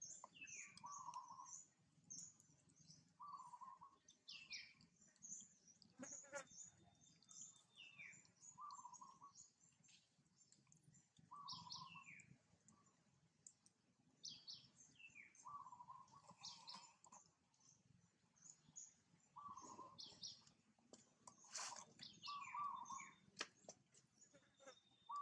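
Faint birdsong: many quick high chirps sweeping downward, with a short mid-pitched call repeated every second or two.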